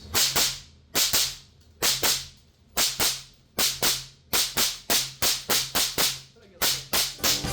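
Suppressed FN PS90 carbines firing 5.7×28 mm rounds. The shots come mostly in quick pairs about a second apart, then in a faster string of about four a second. Each shot is a sharp crack with a short echo.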